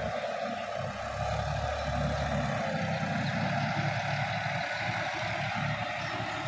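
Sonalika DI 50 tractor engine running steadily under load as the tractor works through a flooded paddy field, a low continuous drone heard at a distance.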